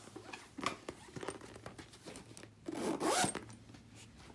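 Zipper on a Louis Vuitton Titanium pochette being pulled, with one longer rasping run of the zip about three seconds in, amid small clicks and rubbing as the bag is handled.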